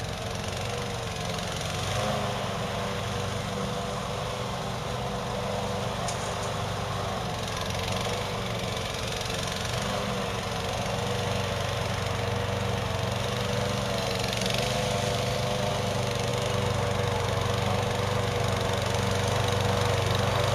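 Gas engine of a Hybrid GOAT 22T remote-controlled tracked slope mower running steadily as the mower works on a hillside, growing slowly louder.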